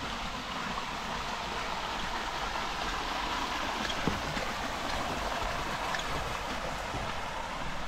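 Rain falling steadily, an even hiss, with a few sharp ticks about halfway through.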